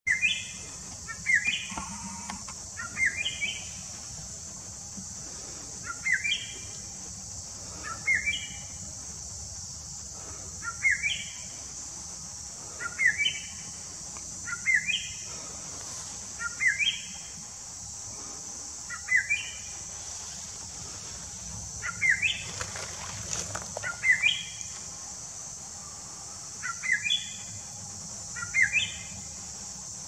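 Greater racket-tailed drongo calling: short, sharp notes in pairs, repeated about every two seconds, over a steady high insect drone.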